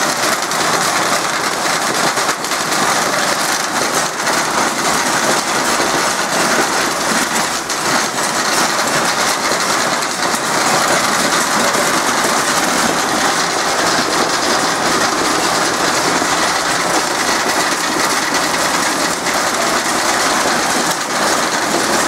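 Crimped wire mesh production machinery running steadily: a loud, dense mechanical clatter that does not let up.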